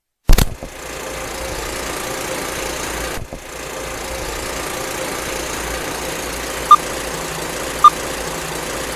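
Intro sound effects for a countdown: one sharp clap just after the start, then a steady mechanical whirring like a running machine, with short beeps about a second apart near the end counting down.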